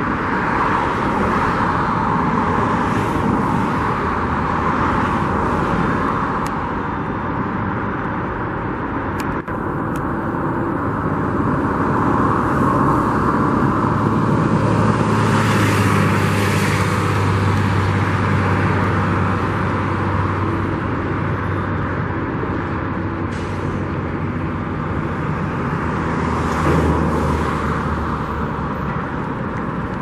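Steady road traffic noise, with a vehicle passing about halfway through, its low engine hum swelling and fading, and another passing near the end.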